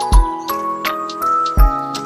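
Background music: held melodic notes over a deep bass beat about every second and a half, with light ticking percussion.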